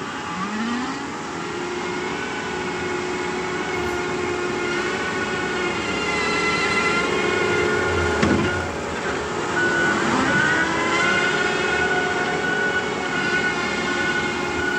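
Heavy hydraulic excavator running under work: a steady diesel engine with a high hydraulic whine. Its pitch sags and recovers twice as the machine takes load, and there is a low thump about eight seconds in.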